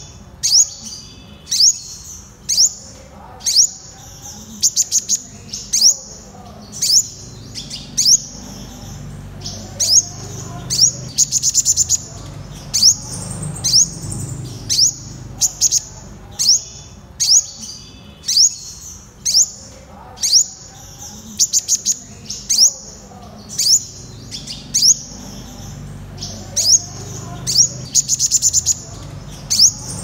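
Purple sunbird calling: a string of sharp, high notes, each sweeping downward, about two a second, broken now and then by short quick runs of several notes.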